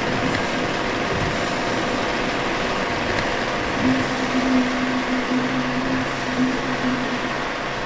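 Steady mechanical running noise with faint steady tones; a low hum comes in about four seconds in, joined by a lower one about a second later.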